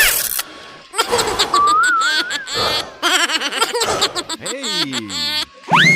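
Cartoon sound effects: a run of high, wavering giggles and laughs, a wobbly whistle-like tone, a falling slide-down glide near the end, then a quick rising whistle.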